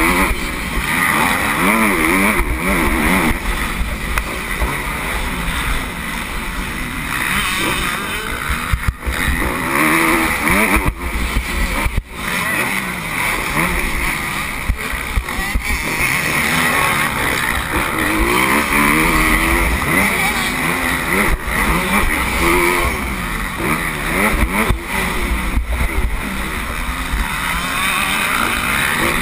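Motocross bike engine racing on a dirt track, revving up and down as it shifts through the gears, heard from an on-board camera. The engine note drops out briefly twice about a third of the way in.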